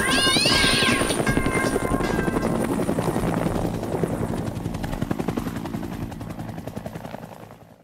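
Helicopter rotor chop, a fast even beating that fades away and stops near the end. A short rising whistle sounds over it about half a second in.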